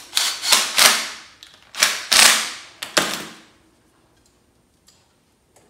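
Cordless impact driver run in about five short bursts of rapid hammering over the first three seconds or so, tightening a bolt at a battery terminal to hold a loose wire; a few faint clicks follow near the end.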